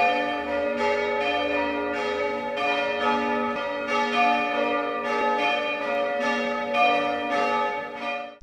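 A peal of church bells, several pitches struck one after another a little under twice a second, each left ringing over the others. It fades out quickly near the end.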